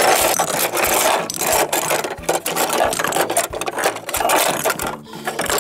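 Hard plastic toy bread pieces scraping and clattering against each other and the plastic toy oven as they are pushed through its tunnel, a dense rasping rattle with many small knocks.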